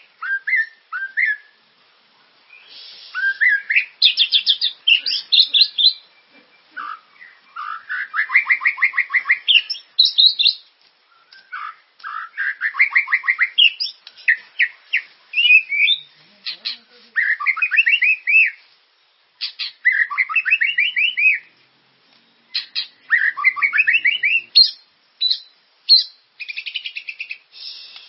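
Murai (Copsychus songbird) singing continuously: a run of loud, varied phrases of fast trills, chirps and sweeping whistles, one after another with short pauses, the full 'gacor' song used as a lure call to prompt other birds to sing.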